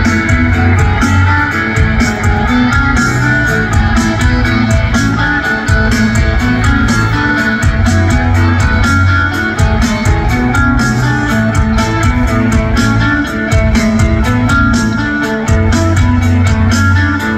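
Live rock band playing an instrumental passage: strummed electric guitars over bass and a steady drum beat.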